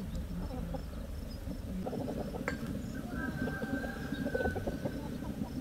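Chickens: a rooster crows once, a long held note about three seconds in, over scattered soft clucks and a steady low background rumble.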